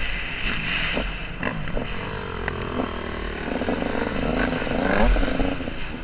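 Off-road motorcycle engine running, with a few sharp knocks. In the second half a wavering engine note rises and falls.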